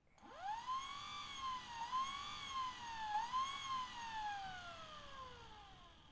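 Radiator fan motor for a Suzuki MH34S spinning up with a whine that climbs quickly in pitch. It dips and picks up again twice, then falls steadily in pitch as the motor coasts down and fades out.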